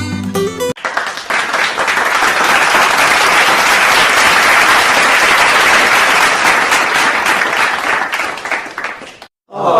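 A crowd applauding, dense clapping that fades out near the end. A bit of plucked music cuts off just before it starts, and a springy boing effect begins right at the end.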